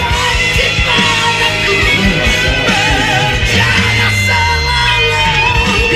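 Hard rock song playing: electric guitars and drums under a powerful male singing voice that holds long, wavering notes. A low bass line slides down about two thirds of the way through.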